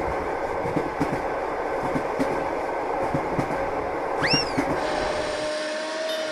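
Train running on rails: a steady rumble with the clickety-clack of wheels over rail joints. A short high tone rises and falls about four seconds in, and the low rumble cuts out about five and a half seconds in.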